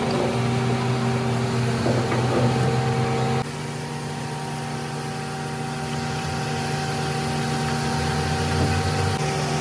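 A motor or engine running steadily with a constant hum. Its tone changes suddenly and it gets a little quieter about three and a half seconds in.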